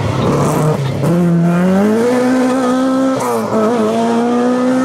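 Mk1 Ford Escort rally car's engine revving hard as it accelerates away, its pitch climbing. About three seconds in there is a brief dip and wobble as it changes gear, then the pitch climbs again.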